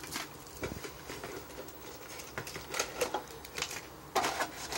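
Hands handling the contents of a collectible card tin: light scattered rustles and taps of plastic-wrapped cards, with a louder rustle near the end.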